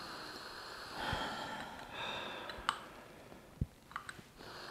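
Sniffing the aroma of a porcelain gaiwan lid: two long, breathy inhales through the nose, about one and two seconds in, followed by a few faint clicks.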